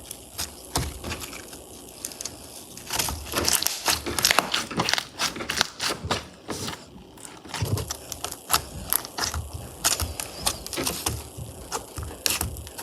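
Slime being handled and squeezed, giving off irregular crackling clicks and pops. The clicks are sparse at first and come thick and fast from about three seconds in.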